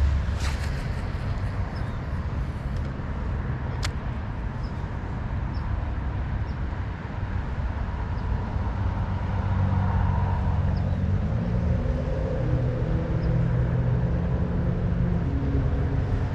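Steady low rumble of road traffic, with an engine hum that rises in pitch a little past the middle, and a sharp click about four seconds in.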